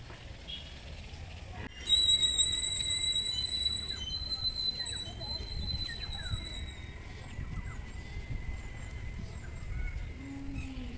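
A steady, high-pitched whistling tone starts suddenly about two seconds in and stops a little past the middle, over a low rumbling background noise.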